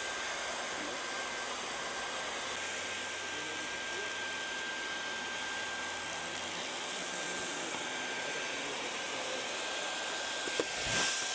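Leister Variant T1 automatic hot-air welder running: the steady rush of its hot-air blower with a thin, high, steady whine as it welds a tape onto a plastic membrane. About a second before the end comes a click and a short, louder rush.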